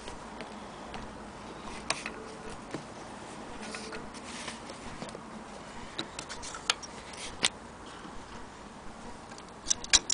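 Scattered sharp metallic clicks and taps as the steel slide plate of a Frister & Rossmann hand-crank sewing machine is pushed open over the shuttle race, with a quick cluster of clicks near the end.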